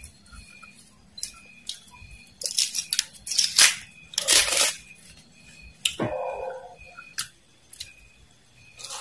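Metal screw cap being twisted on a glass drink bottle: a run of crackling as the cap turns, then a hiss about four seconds in. A short knock with a falling tone follows about six seconds in.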